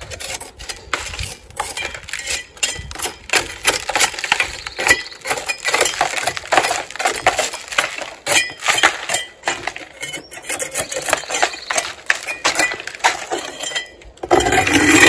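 Loose old stucco being chipped and scraped from the broken edge of a wall around chicken-wire lath with a hand tool: a fast, uneven run of sharp clinks and scrapes, with a heavier crunch near the end.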